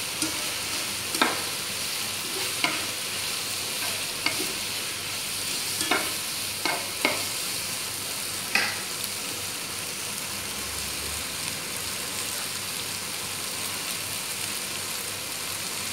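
Chicken strips sizzling steadily in a nonstick frying pan, with a spatula knocking and scraping against the pan about eight times in the first half; after that only the steady sizzle.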